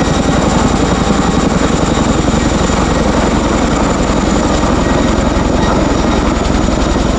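RAF Chinook tandem-rotor helicopter flying low and close, its twin rotors beating in a steady, rapid thud over the whine of its two turboshaft engines.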